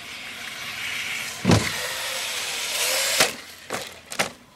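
Traxxas Slash 4x4 RC truck's electric motor whining as it speeds up, then a hard thud about a second and a half in as it hits the ground. The whine runs on until a second knock near three seconds, after which the motor goes quiet and a few light clatters follow: a hard landing that knocks the battery out.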